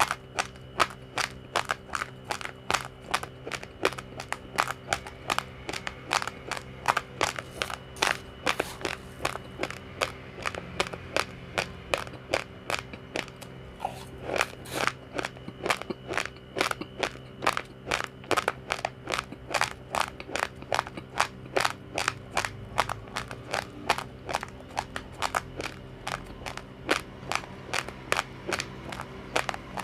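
Uncooked rice grains crunching between the teeth as someone chews a mouthful of raw rice: a steady run of crisp cracks, about three a second.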